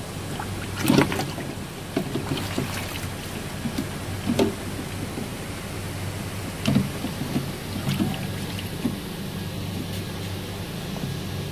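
Hands sloshing in a cooler of ice water, stirring fish and ice cubes, with short splashes and knocks, the loudest about a second in and several more through the middle. A steady low hum runs underneath.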